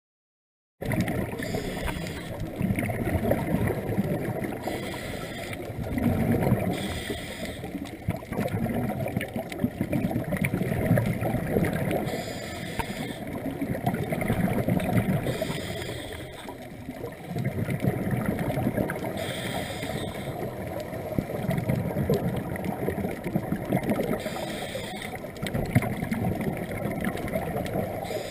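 Scuba regulator breathing heard underwater: short hissing inhalations every few seconds between longer bubbling, rumbling exhalations. It begins about a second in, after silence.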